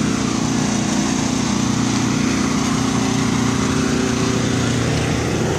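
An engine running at a steady speed, an even hum that holds one pitch without revving.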